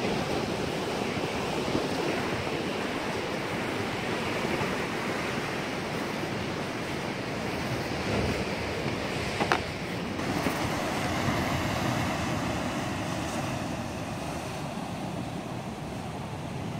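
Steady rush of wind and sea surf, with a single short knock about nine and a half seconds in.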